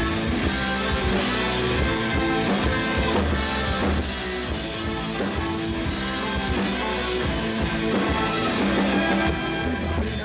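Rock band playing live, electric guitar and drum kit to the fore.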